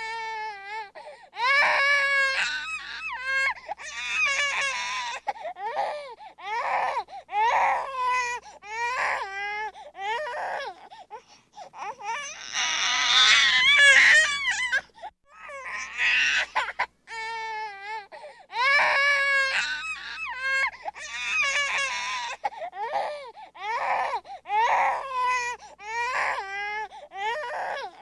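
A baby crying angrily in repeated wailing cries about a second long, broken by short gasps for breath, with a longer, louder, harsher screaming stretch about halfway through.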